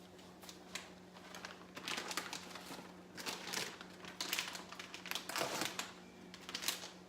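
Plastic bag of shredded cheese crinkling and rustling in irregular bursts as the cheese is shaken out over a casserole. A faint steady low hum runs underneath.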